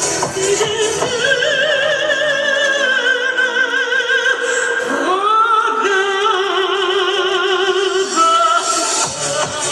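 Recorded music with a singer holding long notes in a strong vibrato, operatic in style, sliding up into a new held note about halfway through.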